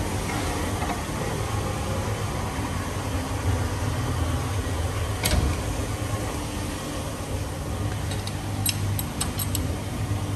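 Steady low hum of workshop machinery. Over it come one sharp metal click about halfway through and a quick run of light metal clicks near the end, from a lever-type valve spring compressor being worked on a cylinder head while the valve springs are fitted.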